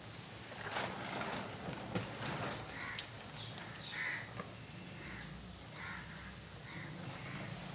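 Crows cawing repeatedly over a steady background hiss and low hum, with a thin stream of cooking oil trickling into an empty iron kadhai.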